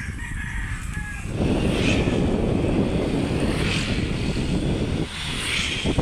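A rooster crowing in the background, with a loud rumbling noise that swells about a second and a half in and eases near the end.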